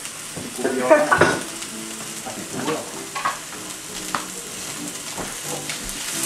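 Breaded chicken cutlets sizzling in hot oil in a nonstick skillet, with a slotted spatula scraping and tapping against the pan a few times as the cutlets are moved and turned.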